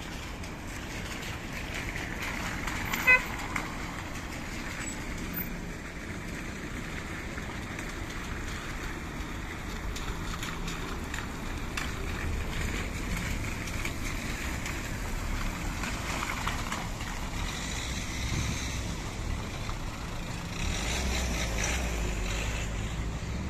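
Cars driving on wet pavement, a steady mix of tyre hiss and engine rumble that swells as vehicles pass close. A single short car-horn beep sounds about three seconds in.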